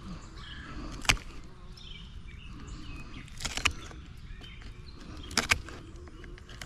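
Pliers cracking and snapping through the bone of a large sheepshead's jaw: one sharp crack about a second in, then two quick doubled cracks. Birds chirp faintly behind.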